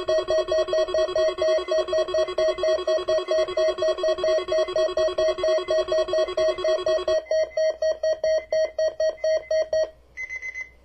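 Alert-equipped weather radio sounding its alarm, set off by the Weather Radio Canada weekly test signal. It gives a rapid electronic pulsing beep of about four to five a second over a steady lower tone. The lower tone drops out about seven seconds in, and the pulsing stops about ten seconds in, followed by two short higher beeps.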